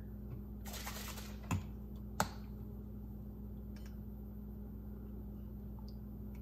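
A brief rustle, then two sharp clicks well under a second apart, from a plastic squeeze bottle and measuring spoon being handled while lemon juice is measured out. A faint steady low hum runs underneath.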